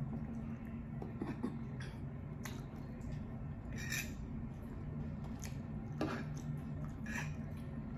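Metal fork scraping and clinking against a plate several times while scooping up food, over a steady low hum.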